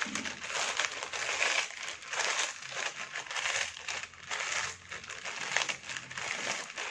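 Potato chips being crushed by hand inside their foil snack packet: repeated crunching, crinkling squeezes, one every half second to second.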